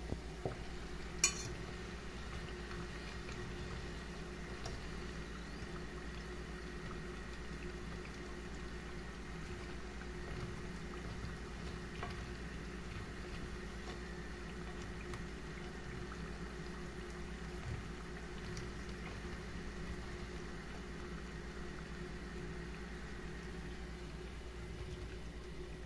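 Polvilho (cassava-starch) dough rings frying in a pot of oil, a steady quiet sizzle and bubbling. A single sharp click about a second in.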